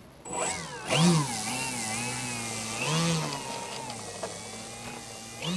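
Brushless electric motor and propeller of an OMP Hobby Edge 540 RC aerobatic plane whining as it is throttled up in surges, about a second in, about three seconds in and again near the end, the pitch rising and falling with each blip while the plane taxis across grass.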